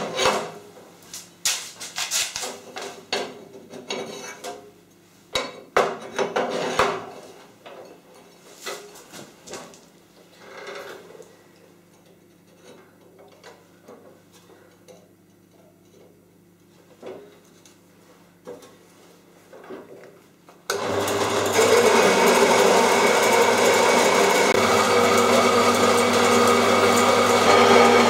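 Metal clattering and knocking as a steel plate is set and clamped in the vise of a 4.5-inch horizontal metal-cutting band saw, then scattered knocks. About 20 seconds in, the band saw's electric motor starts suddenly and runs steadily with a constant hum, the blade cutting the clamped steel plate.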